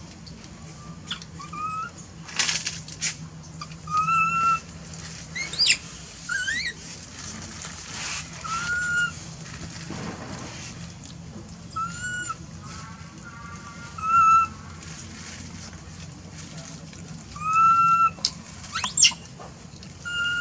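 Long-tailed macaques giving short, high, whistle-like coo calls, each arching up and down in pitch and repeated every second or two, with a few sharper rising squeaks. Short bursts of crinkling plastic from a bag being rummaged break in now and then.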